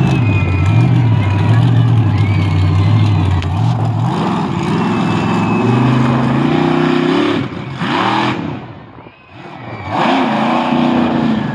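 Monster truck's Hemi V8 engine running steadily, then revving up about four seconds in as the truck drives at the parked cars. The engine drops off briefly around nine seconds, then revs again as the truck climbs onto a car.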